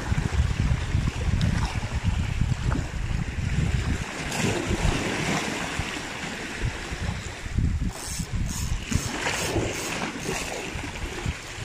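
Sea waves washing and foaming over the rocks of a breakwater, in surges. A low rumble of wind on the microphone in the first few seconds.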